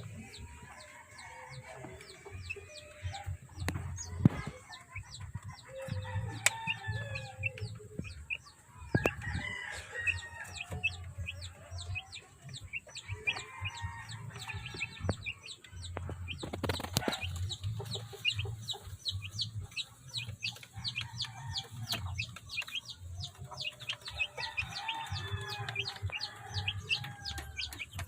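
Gamefowl chickens clucking and crowing at intervals, over a constant patter of short high-pitched chirps.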